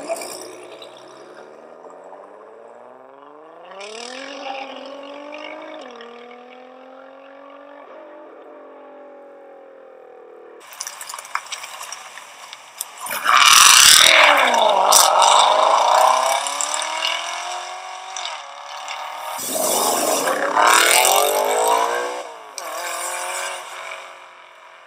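Supercar engines accelerating hard through the gears: the engine note climbs and steps down at each upshift. In the second half two much louder bursts of hard acceleration come about six seconds apart.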